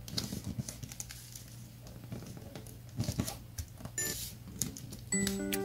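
Origami paper being folded and creased by hand: soft crinkling and rustling, with small bursts of rustles about three and four seconds in. A short chiming music phrase comes in near the end.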